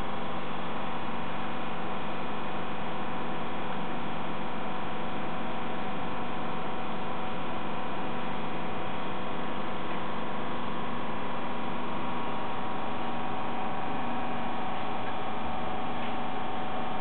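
Inside a Berlin S-Bahn class 482 car: a steady electrical hum with a constant whine from the train's equipment over an even noise bed, unchanging throughout.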